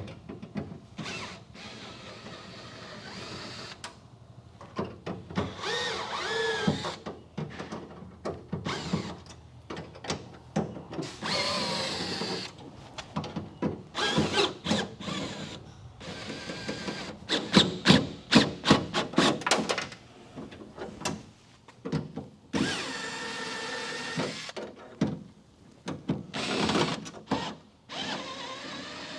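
A hand power tool working on metal in short stop-start bursts, its pitch rising and falling as it spins up and slows, with a stretch of rapid sharp crackling in the middle.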